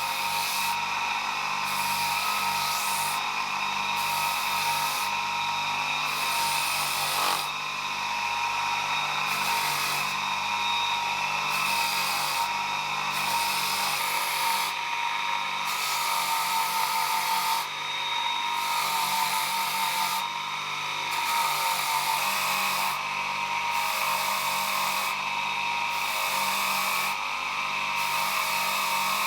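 Small electric power tool running at a steady pitch while working a metal part, with short breaks in its hiss every second or two.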